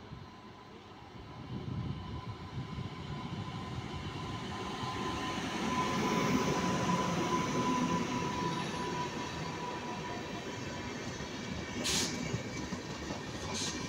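Indian Railways electric locomotive and LHB passenger coaches passing at speed. The rumble builds as the train approaches, is loudest as the locomotive goes by about six seconds in, then carries on as a steady rumble of the coaches. A thin steady whine runs underneath, and two sharp clicks come near the end.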